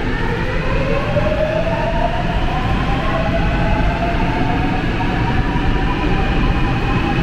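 Seoul subway Line 8 train heard through the platform screen doors as it pulls away. Its traction motors whine in several tones that climb in pitch for the first few seconds and then level off, over a steady low rumble of the running train.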